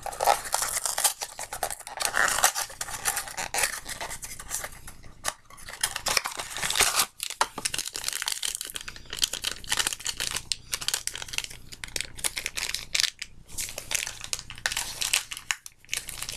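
Crinkling and tearing of a small collectible's packaging, pulled at by hand in repeated tugs with short pauses; the packaging has no tear notch, so it is hard to rip open.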